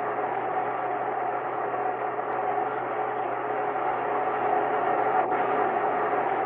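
Steady rocket engine noise of a missile in flight on an old archival film soundtrack, dull and muffled, with a steady hum running through it.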